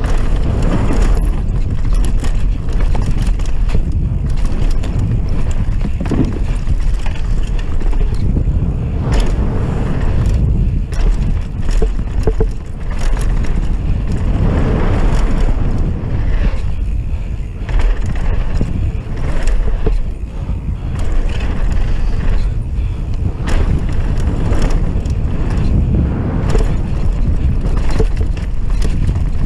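Wind buffeting the rider's action-camera microphone on a fast mountain-bike descent, with knobby tyres running over dirt and roots and the bike rattling and clacking over bumps.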